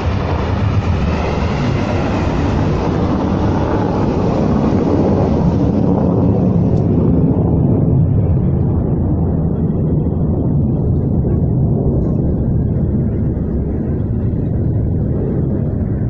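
Rocket motors of several missiles at launch: a loud, steady rushing noise, heaviest in the low end, that turns duller about six seconds in.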